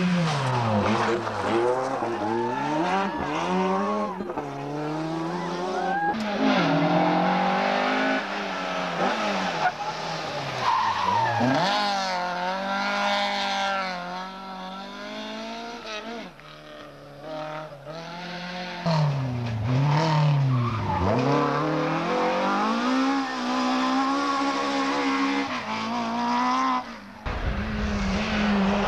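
Rally cars, among them a Ford Escort Mk2, passing at speed one after another, their engines revving hard and dropping away again through gear changes and lifts.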